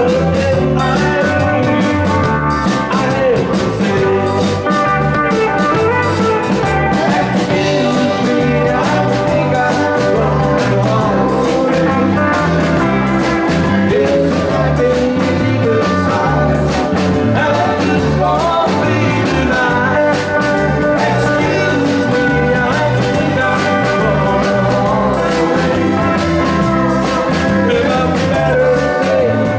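A live band playing a song with a man singing lead into a microphone, over a steady bass and drum beat.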